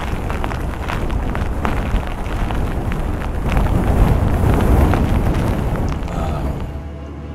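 Strong storm wind buffeting the microphone: a steady rushing noise, heaviest in the low end, that swells about four seconds in and eases near the end.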